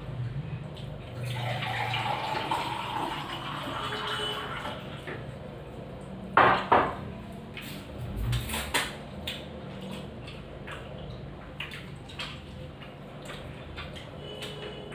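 Meal sounds of dahi pakhala, watery rice with curd, being mixed and scooped by hand on a plate, wet and splashy. About halfway through there are two sharp clinks of steel bowls or plates, followed by a few lighter knocks.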